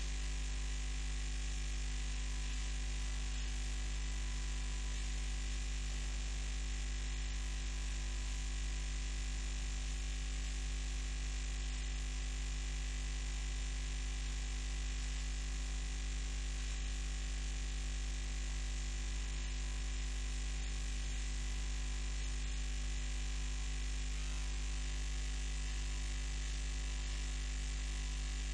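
Steady electrical mains hum, a low drone with a constant hiss above it.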